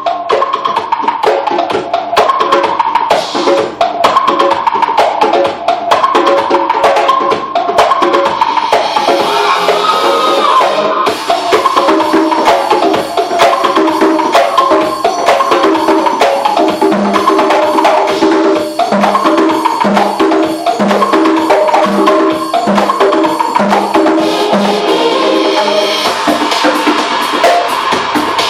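Live percussion played in a fast, busy rhythm of quick pitched strokes. From about seventeen seconds in, a deeper beat joins, roughly once a second.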